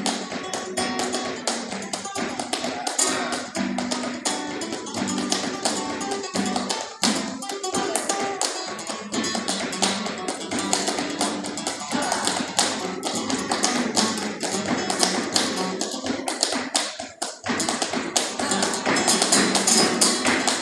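Flamenco bulería played on acoustic guitar over fast, rhythmic palmas (handclapping) from several people. The music drops out briefly about seventeen seconds in.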